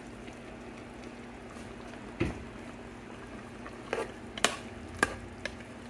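Pots simmering on the stove, a steady bubbling hiss with a faint hum underneath. A plastic ladle knocks against the pot about five times from about two seconds in as diced nopales are stirred into the chile sauce.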